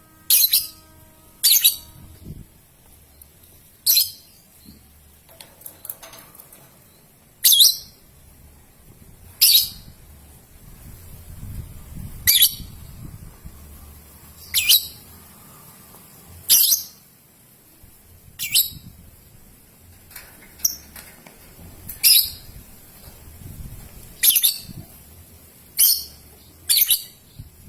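Young lovebird giving short, sharp, high-pitched chirps, one every one to three seconds.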